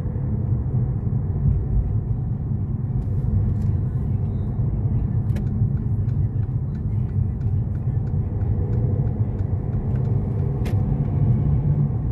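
Steady low rumble of a moving car's engine and tyres, heard from inside the cabin, with a few faint clicks.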